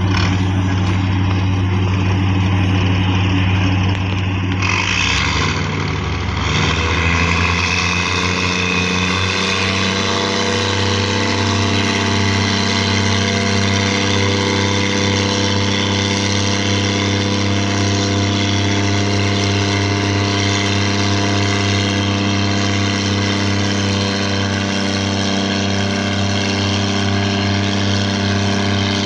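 A ship's diesel engine running steadily. Its note shifts about five seconds in and then settles, while propeller wash churns the water at the pier.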